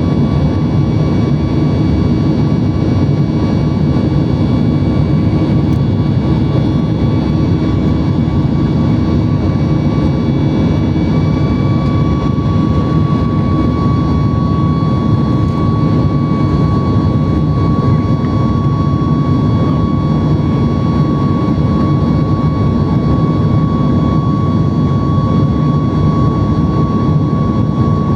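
Boeing 737 MAX's CFM LEAP-1B jet engines running at departure power, heard as a loud, steady rush of engine and airflow noise. A steady high whine runs through it and grows stronger about halfway through.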